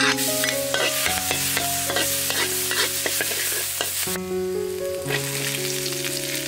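Minced garlic and spring onion sizzling in hot oil in a steel wok, a metal spatula scraping and tapping against the pan in quick, repeated strokes as it stirs.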